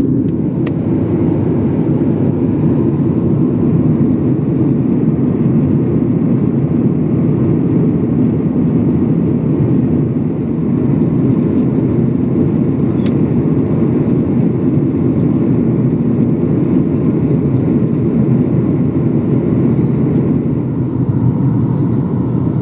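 Steady jet airliner cabin noise inside a Boeing 737: a low, even roar of engines and airflow with no distinct events.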